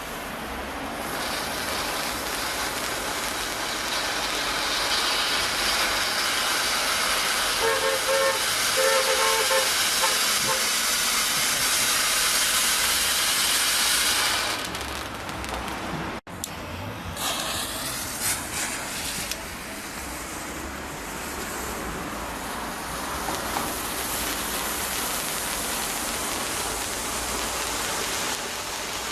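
Ground fountain firework (volcano fountain) burning with a steady, loud hiss of spraying sparks. The hiss fades and breaks off about halfway through, then a second stretch of hissing follows.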